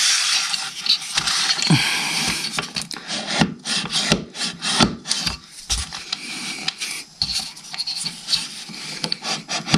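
A plunge router's base scraping and rubbing across a wooden workbench top as it is handled: a dense scraping for the first few seconds, then intermittent rubbing with scattered knocks.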